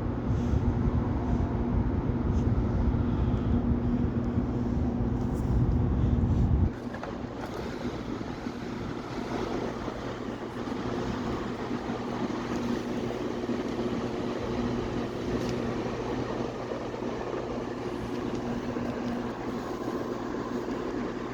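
Wind rushing across an underground high-speed rail platform, pushed ahead of an approaching SRT train by its air pressure. A loud low rumble drops off suddenly about seven seconds in, leaving a quieter steady rush of air with a faint hum.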